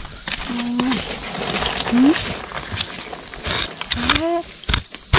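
Steady high-pitched drone of forest insects, with short scrapes and ticks of a digging tool working through damp soil.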